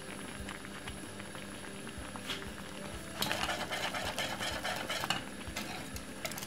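Wire whisk stirring thick porridge in an aluminium saucepan, its wires scraping and clicking quickly against the pan. The whisking grows louder about three seconds in.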